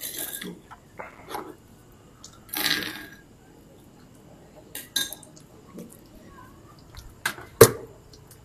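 Eating by hand at a table: a few short, noisy mouth sounds and light clatters of food and utensils on a plastic plate and a stone mortar. Two sharp knocks come near the end, the second the loudest.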